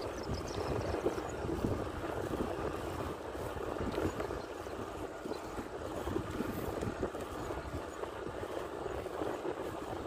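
Steady rushing of wind buffeting the microphone on a moving bicycle, with a flickering low rumble and no distinct events.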